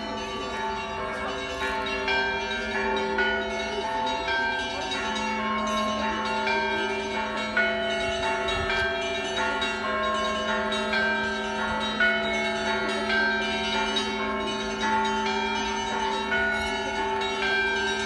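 Russian Orthodox church bells ringing: several bells of different pitches, the smaller ones struck again and again in a quick, uneven pattern over the long, steady hum of the larger bells.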